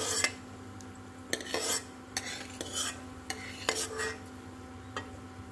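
Steel spoon scraping and tapping against a wok as roasted peanuts are scooped out of hot oil into a bowl, in a scattered series of short scrapes and clinks.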